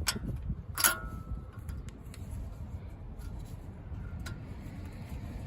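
Sharp metal clicks from a brake pad retainer spring clip being fitted to a brake caliper, the loudest about a second in with a brief ring, then a few fainter clicks. A steady low rumble runs underneath.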